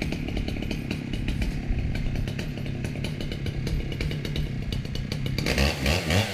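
Ported Stihl MS 880 two-stroke chainsaw running hard under load as it rips a log lengthwise in a chainsaw mill. Just over five seconds in, its note changes and the pitch starts to rise and fall.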